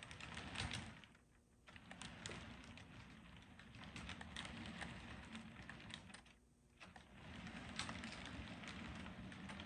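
HO scale model passenger cars rolling along the track: a low rumble with many small, quick clicks of the wheels on the rails. The sound dips briefly twice.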